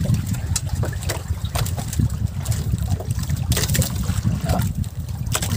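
Water lapping and splashing against the hull of a wooden outrigger boat over a steady low rumble, with scattered short splashes and clicks.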